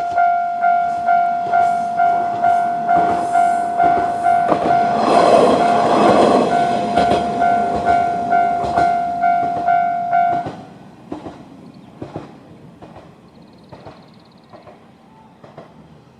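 Level-crossing warning bell ringing a steady repeated ding, a little under twice a second, while a Kanto Railway KiHa 5010-class diesel railcar runs over the crossing, loudest about five to seven seconds in, with wheel clicks. The bell stops sharply about ten seconds in, leaving only faint clicks.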